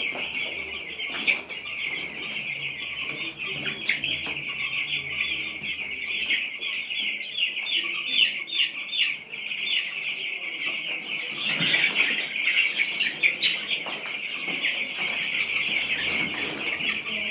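A flock of week-old broiler chicks peeping continuously, many high chirps overlapping into a dense chorus.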